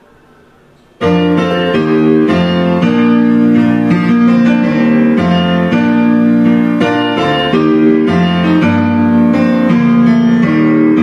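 Karaoke backing track starting suddenly about a second in with a piano introduction: sustained keyboard chords changing every half second or so over a steady bass.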